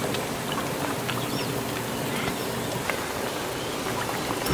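Outdoor rural ambience: a steady hiss of background noise with a few faint high bird chirps.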